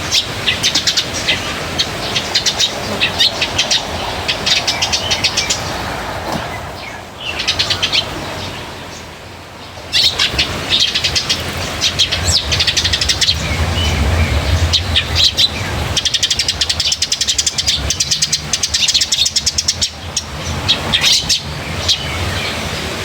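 Small birds chirping in quick, rapid runs of high notes, with a lull of a few seconds about a third of the way in before the chirping picks up again.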